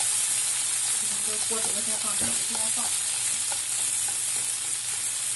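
Food frying in oil in a pan, a steady sizzle, being fried over low heat until crisp.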